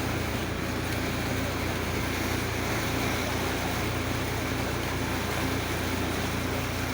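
Boat motor running steadily, a constant low drone over an even rush of water and wind.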